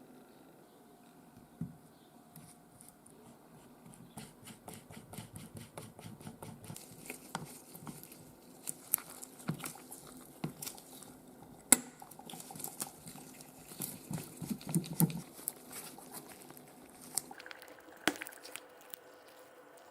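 Small tools and metal watch parts of an Omega Seamaster Cosmic 2000 clicking, tapping and scraping as the watch is worked on by hand. A quick even run of light clicks about four seconds in, then scattered taps, the sharpest about twelve seconds in.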